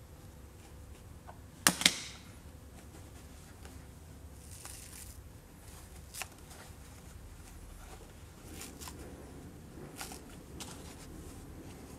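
Hands working the pick-and-pluck foam insert of a small hard plastic case, with soft rustling and the scuff of foam cubes being pulled and pressed. A sharp double knock comes about two seconds in, and a few lighter clicks follow near the end.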